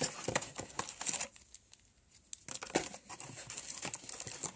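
Crinkling and rustling of packaging being handled, in short bursts with a quiet pause in the middle, while the box contents are searched for the camera battery.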